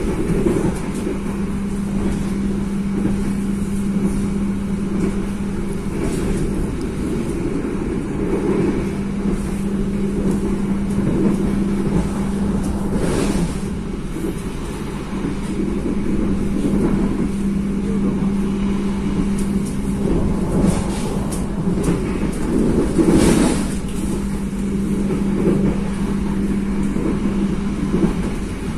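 Steady running vehicle noise: a constant low hum over a rumble, with two short louder swells, one around the middle and one later on.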